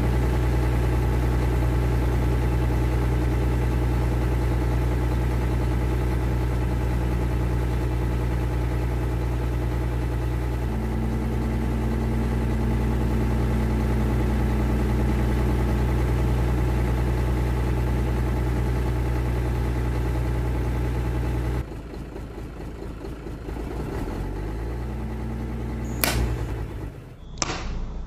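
Diesel truck engine sound running steadily and evenly, shifting slightly in pitch about a third of the way in. About three-quarters through it drops to a quieter engine sound that rises briefly, followed by a couple of sharp clicks near the end.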